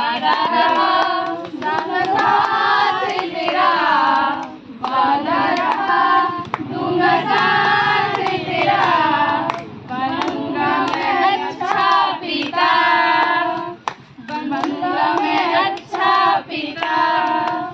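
A group of women singing a song together in chorus, in phrases with short breaks, while clapping their hands in time.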